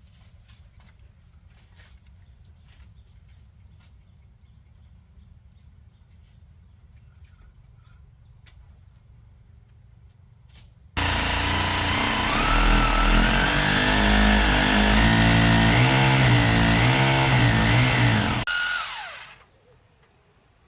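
A small motor or power tool starts abruptly about eleven seconds in and runs loudly for about seven seconds with a wavering pitch, then dies away. Before it there is only a faint steady high tone and a few light clicks.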